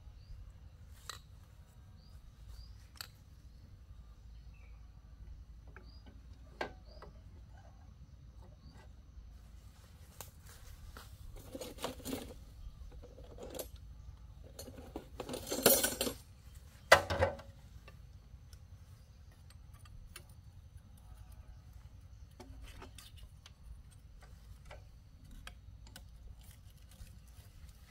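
Metal tools and parts being handled: scattered light clinks and knocks, with a run of louder metallic clanks about halfway through, over a low steady hum.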